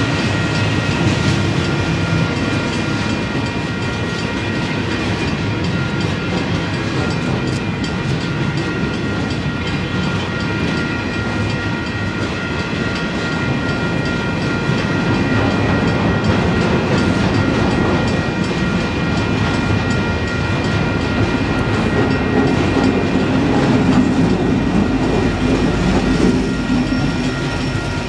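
Union Pacific double-stack container train rolling past: a steady rumble and clatter of freight car wheels on the rails, with a faint steady high-pitched ring. Over the last few seconds the sound gets louder and deeper as the mid-train distributed-power diesel locomotive comes by.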